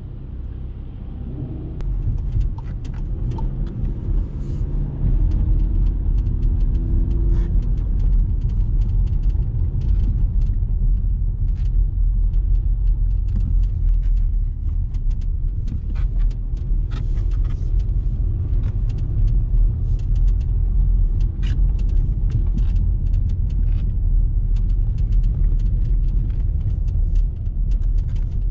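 Cabin sound of a 2019 Skoda Kodiaq's 2.0 TDI diesel while driving: a low rumble of engine and road that grows louder as the car pulls away. The engine note rises a few seconds in, with many small knocks and rattles from the tyres and suspension over rough street surface.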